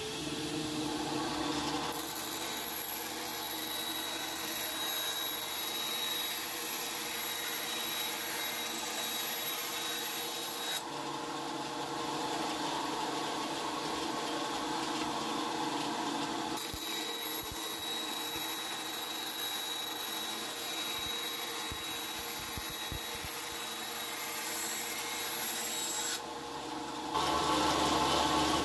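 Benchtop bandsaw running with a steady motor hum and whine while its blade cuts through a thin board. The sound changes abruptly several times and is loudest near the end.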